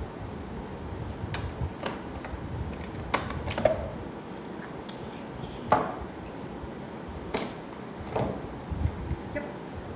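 Hard plastic clicks and knocks, a handful spread unevenly over several seconds, as a Ninja Creami ice cream maker's outer bowl is twisted off the machine and its paddle lid is unlocked and lifted off.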